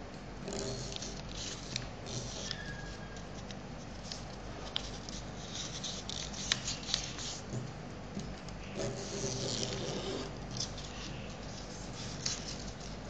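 A sheet of paper being handled and folded by hand: intermittent crinkling and rustling in several short bursts, with scattered sharp ticks as the creases are pressed.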